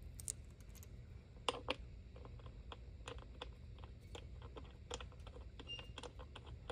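Faint, irregular light clicks and taps as fingers handle the bolt heads on an aluminium bus bar, the loudest two close together about a second and a half in, over a faint low hum.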